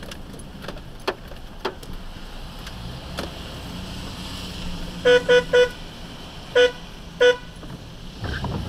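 Car horn honking in five short beeps: three quick ones, then two more spaced about half a second apart, a warning to a car braking just ahead. Under it runs the steady hum of the car driving, with a few faint clicks early on.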